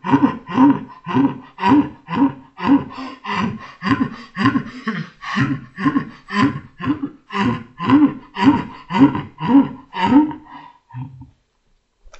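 A man's hearty laughter played back slowed down, so each 'ha' comes as a deep, evenly spaced pulse, about two a second. The laughter stops about a second before the end.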